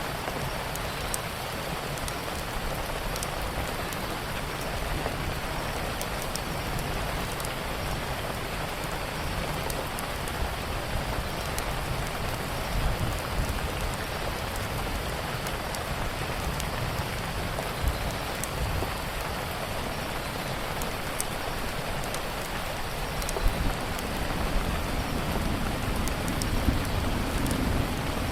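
Steady rainfall, an even hiss with a low rumble underneath, with scattered small crackles from a fireplace.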